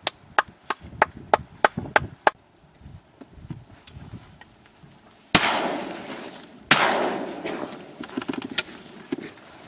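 Two shotgun shots just over a second apart, each loud and sudden with a long fading echo, fired at ducks. Before them comes a quick run of sharp clicks.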